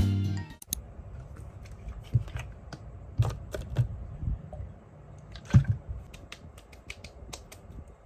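Scattered light clicks and taps of small hard objects being handled, a few louder knocks among them, over faint low background noise. Background music cuts off about half a second in.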